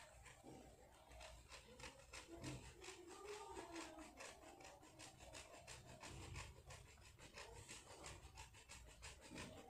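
A bar of bath soap being grated on a flat stainless-steel hand grater: faint, quick scraping strokes, about four or five a second.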